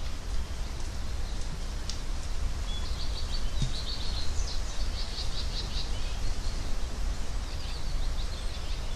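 Outdoor ambience: small birds chirping in quick twittering runs, busiest a few seconds in, over a steady low rumble.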